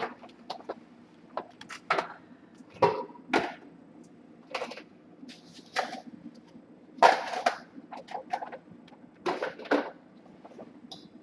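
Irregular knocks and clatter of a utensil and pieces of fatty beef going into a frying pan, with little sizzle because the pan is not yet hot.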